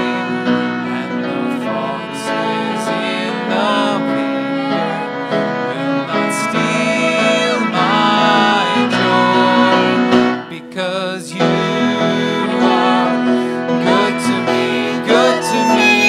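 Violin playing a slow melody with vibrato over grand piano chords, an instrumental break in a worship song. The music drops briefly about two-thirds of the way through.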